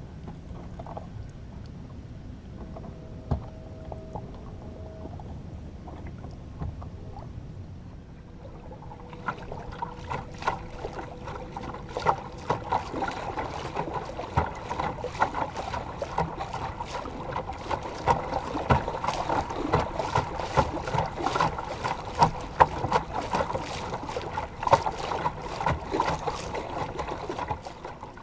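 Aluminum jon boat under way on a trolling motor after the outboard is tilted up. From about nine seconds in, water chop slaps and splashes rapidly against the hull, with a faint steady hum underneath.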